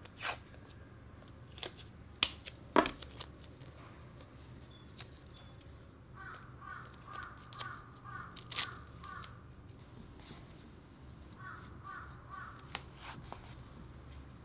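Washi tape peeled off its roll and torn by hand: several sharp rips and crackles in the first three seconds, and a couple more later. Quick runs of a repeated call, like a bird outdoors, sound behind it twice, about halfway through and again near the end.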